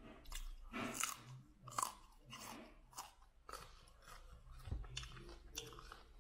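A person chewing raw broccoli, crisp crunches coming at an irregular pace.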